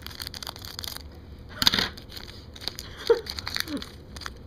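Crinkling and crackling of hockey-card pack wrappers being torn open and crumpled by hand, with a louder crunch about one and a half seconds in.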